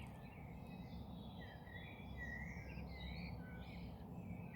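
Dawn chorus of garden birds: several birds singing and calling at once, with short, overlapping chirps and warbling phrases. The chorus is faint, over a steady low background rumble.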